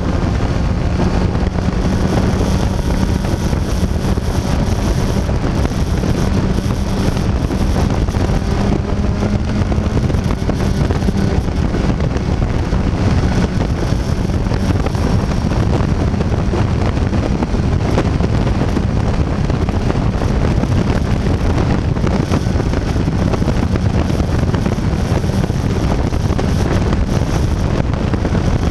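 Sport motorcycle at highway speed, about 140 km/h: a steady rush of wind on the microphone over the engine's drone. The engine note rises slightly over the first ten seconds as the bike speeds up.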